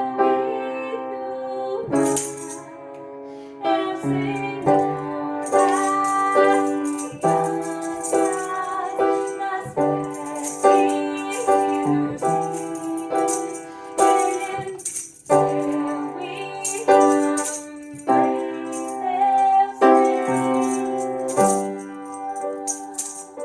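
Upright piano playing a song in steady chords, with a hand-held toy shaker rattled along in time from about two seconds in.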